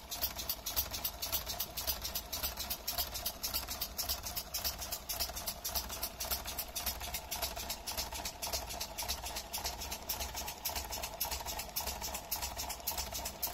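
Lego pneumatic locomotive's compressed-air drive running: a fast, even train of ticks or puffs, about six a second, over a steady mid-pitched mechanical hum.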